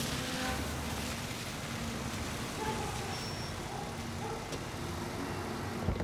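A car's engine running steadily, a low hum under a wash of noise, with a sharp knock near the end.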